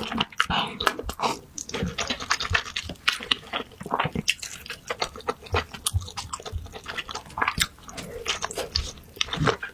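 Close-up eating sounds: wet chewing and lip-smacking, a dense run of small irregular clicks and crackles.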